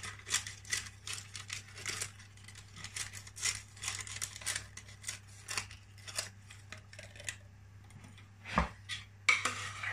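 Brown baking-paper cupcake cases filled with batter rustling and crinkling as they are handled and pushed together on a metal baking tray, with a single dull knock near the end.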